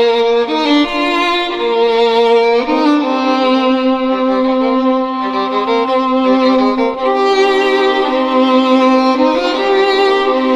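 Ringtone music: a slow instrumental melody of long held notes, stepping from one pitch to the next.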